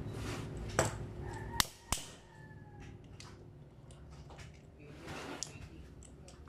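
Hand tool working on a removed motorcycle clutch cover: three sharp metal clicks in the first two seconds, then quieter scraping and fiddling. A faint falling squeak comes about two seconds in.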